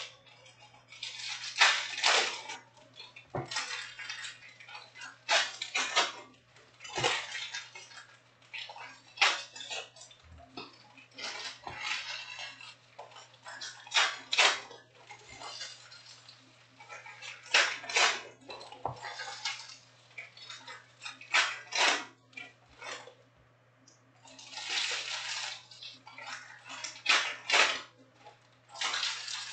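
Foil packs of Panini Prizm trading cards being torn open and handled: the wrappers crinkle and rip in repeated, irregular bursts, and the cards rustle as they are slid out.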